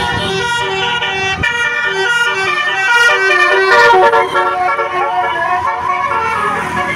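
Basuri-type telolet bus horn, a multi-trumpet electric horn, playing a quick tune of stepped, held notes. It is loudest about three to four seconds in.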